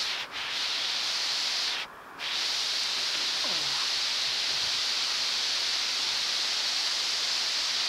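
Heavy rain pouring down in a steady hiss, briefly dropping out twice, about a quarter second in and again around two seconds in.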